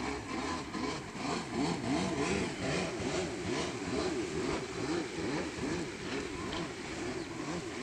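Jet ski engine running, its pitch wavering up and down quickly over and over.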